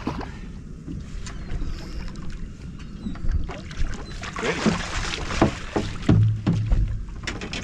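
Water splashing beside a boat hull as a hooked striped bass thrashes at the surface, with a few sharp knocks.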